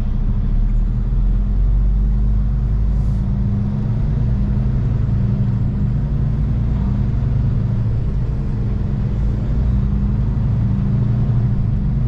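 Kenworth T680 semi-truck's diesel engine heard from inside the cab, a steady low drone as the truck pulls away and accelerates onto the highway under heavy throttle.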